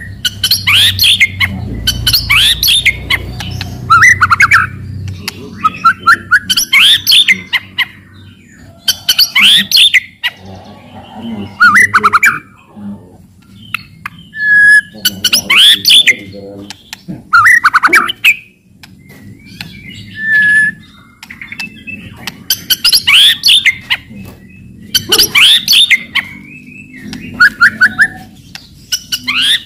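White-rumped shama (murai batu) singing loudly: short phrases of sharp rattling clicks and falling whistled notes, a new phrase every second or two. This is the excited rattling song keepers call cetrekan, used to provoke other male murai batu into singing.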